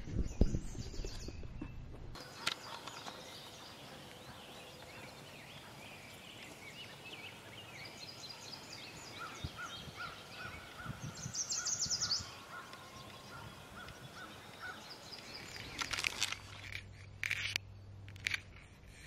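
Wild birds singing and calling in woodland: many short chirps, trills and repeated notes, with one bright burst of song about halfway through. It opens with a couple of seconds of footsteps and camera-handling rumble, and a few sharp knocks come near the end.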